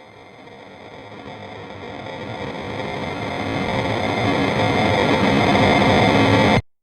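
Cinematic horror riser: a distorted, noisy drone that swells steadily louder for about six and a half seconds, then cuts off abruptly, leaving a brief faint high ring.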